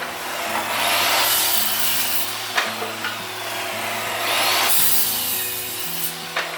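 Saw cutting through scrap wood, two cuts of about two seconds each, with background music underneath.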